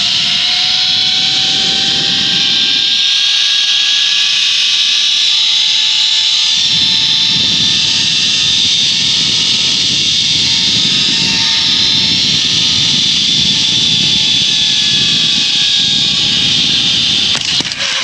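Zipline trolley pulleys running fast along a steel cable: a loud steady rushing hiss with a whine that climbs in pitch over the first few seconds and then holds. A few sharp clicks come near the end.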